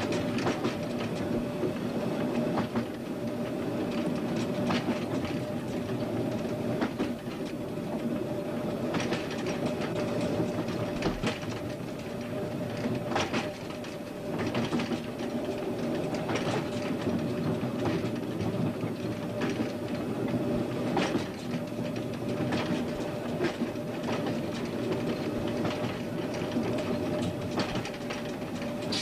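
Train running along the line, its wheels clicking irregularly over the rail joints above a steady drone.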